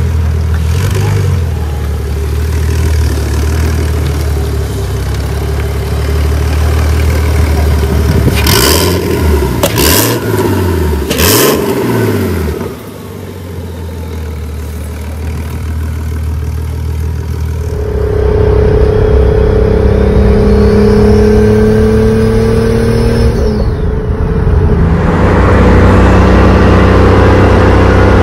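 Turbocharged BMW E46 engine running, revved three times in quick succession about a third of the way in. Later the sound changes to a steadier engine note with a sustained higher tone over it.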